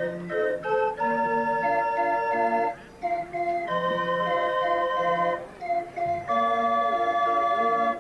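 Hand-cranked barrel organ (street organ) playing a tune in held chords, with brief breaks between phrases.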